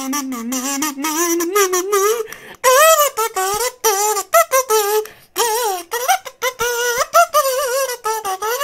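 A high, warbling voice making wordless sounds in short phrases, its pitch wobbling quickly up and down.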